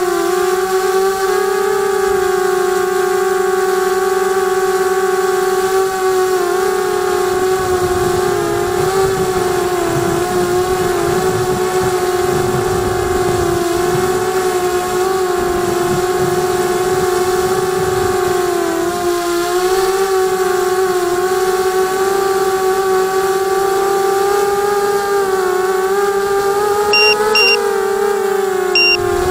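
QAV250 racing quadcopter's brushless motors and propellers whining at a steady pitch that wavers slightly with throttle, with a low wind rumble for a stretch in the middle. Three short high beeps sound near the end.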